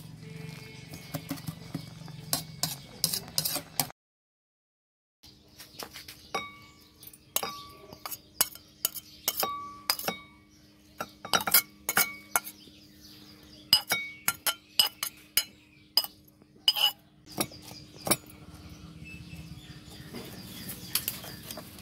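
A spoon clinking and scraping against a metal pot and ceramic bowls as food is stirred and mixed, in many sharp, irregular clinks. There is a short silent break about four seconds in.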